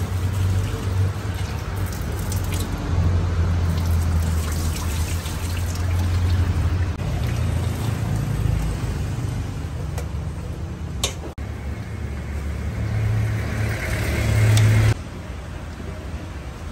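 Kitchen water sounds: splashing and running water as cut green beans are handled and tipped from a steel tray into a pot of water, over a steady low hum. A short sharp click about two-thirds of the way through.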